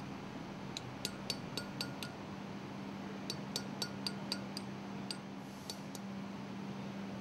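Light hammer taps on a steel punch held against a piston's locking flange, each tap a short metallic clink. They come in two runs of about four taps a second, with a pause between them, over a steady low hum.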